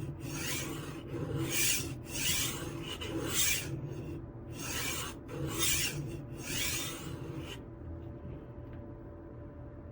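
HORL 3 Cruise rolling knife sharpener's diamond disc rolled back and forth along a knife edge held on its magnetic angle block: a gritty rasp about once a second, stopping about seven and a half seconds in.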